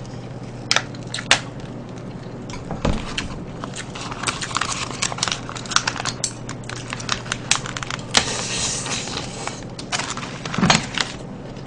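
Crinkling and crackling of the plastic film lids being peeled off Hetbahn microwavable rice tubs, with scattered clicks of a spoon and chopsticks against ceramic bowls.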